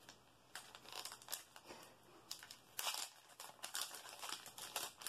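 Foil wrapper of a Japanese Pokémon booster pack being crinkled and torn open by hand, with no scissors: faint, irregular crackling and small rips starting about half a second in.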